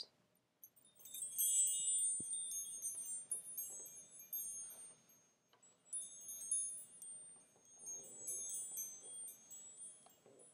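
Wind chimes tinkling: many short, high ringing tones struck in overlapping runs, with a lull around the middle.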